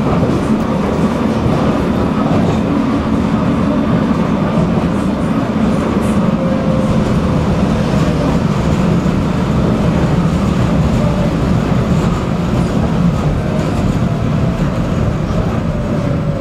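Tram running along its track, heard from inside the passenger car: a steady, loud rumble of steel wheels on rails and running gear, with a faint whine that drifts slowly in pitch.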